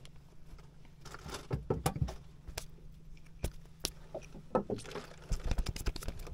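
Handling noises in a small wooden boat as a caught fish is held: scattered light knocks, clicks and rustles, over a faint steady low hum.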